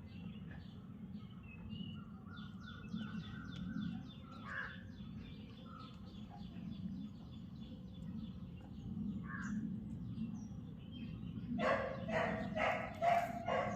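Birds chirping and calling: a steady stream of quick high chirps, then, near the end, about four loud harsh calls in a row.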